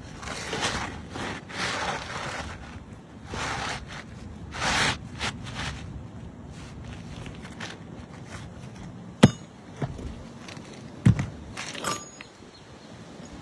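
Asphalt roof shingles being pried up and scraped, with rough crackling scrapes during the first five seconds, then two sharp knocks about nine and eleven seconds in and a lighter one just after.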